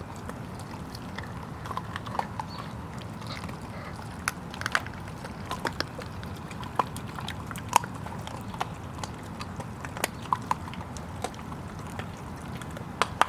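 Hovawart puppies moving about: irregular sharp clicks and taps, a few every second.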